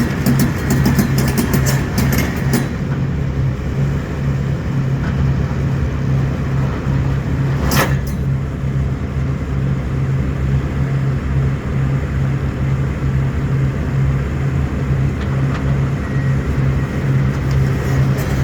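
Heavy diesel engine of an excavator or its delivery truck running steadily, with a run of clicks and rattles in the first two or three seconds and a single sharp clank about eight seconds in.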